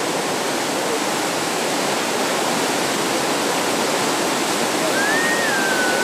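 River rapids rushing steadily over rocks. About five seconds in, a single thin whistle-like tone begins, rising a little, then dipping and holding.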